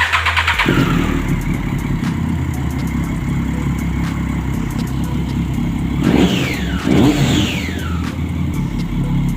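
Triumph Street Triple 675's inline three-cylinder engine starting: a brief crank, then it catches and idles steadily. It is revved twice in quick succession about six and seven seconds in, each rev falling straight back to idle.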